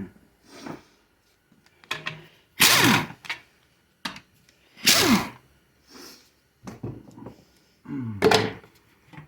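Three loud metal clunks with a grinding scrape, about two seconds apart, each sliding down in pitch, with small knocks and clicks between them: metal parts being worked loose on a 4L60E transmission case during teardown.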